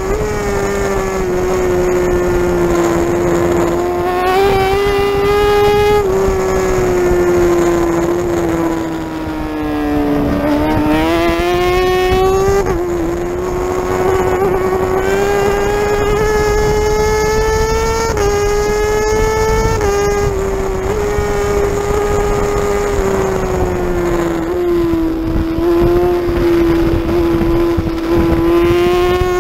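Racing superbike's engine running hard at about 10,000–12,000 rpm, heard from on board at track speed: a steady, high engine note that dips briefly in pitch about ten seconds in as the throttle eases, then rises again.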